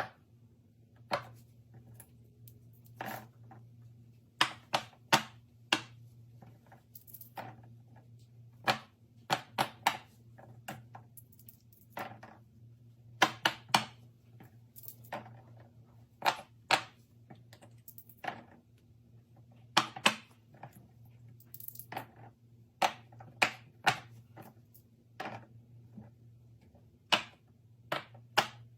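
Fidget toys being handled: sharp, irregular clicks and taps of hard plastic, often in quick pairs or clusters, over a faint steady low hum.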